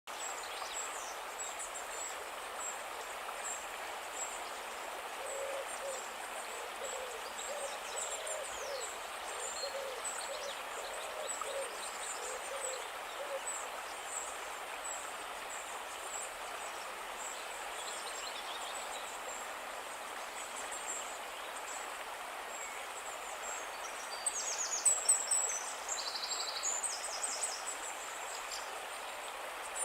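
A calm river flowing steadily, with small birds chirping high above it. Between about five and thirteen seconds in, a low call repeats about a dozen times, and near the end a louder flurry of high calls breaks out.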